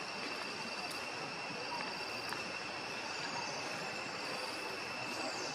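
Forest insects droning steadily: a continuous high-pitched whine held at two even pitches over a background hiss.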